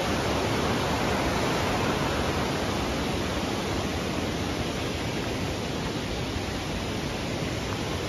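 White water of a fast mountain stream rushing over rocks: a steady, even rush with no breaks.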